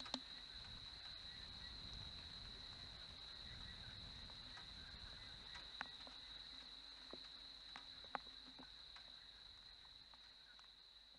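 Faint night ambience: insects trilling steadily on one high pitch, with a few sharp clicks, about a second into it and near six and eight seconds.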